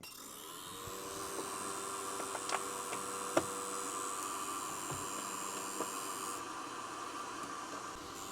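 Small cooling fans of a SUNLU AMS filament-dryer heater running with a steady hum, hiss and high whine, the fan noise that comes from over-tightened mounting screws. A few light clicks sound as the screws are worked, and the high whine cuts off about six seconds in.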